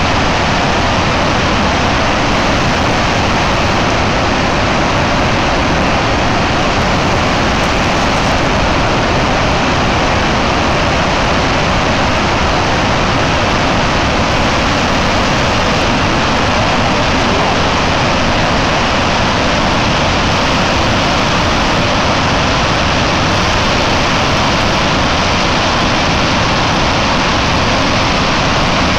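Floodwater discharging from a dam's spillway and plunging into the river below: a loud, steady, unbroken rushing noise.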